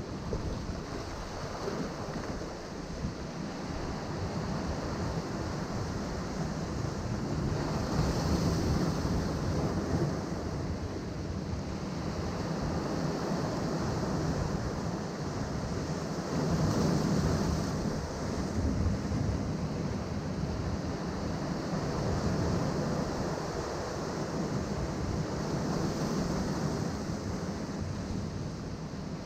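Ocean waves surging and breaking against rocks, with the wash swelling louder about every nine seconds. Wind rumbles on the microphone underneath.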